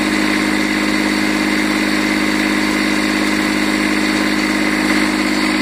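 A Jacobsen LF100 mower's 22 hp Kubota diesel engine running at a steady speed, with no change in pitch or level.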